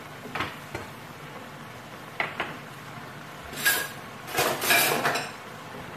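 Dishes and kitchen utensils being moved about at a counter and sink: a few light knocks and clinks, then a louder clatter lasting about a second and a half past halfway.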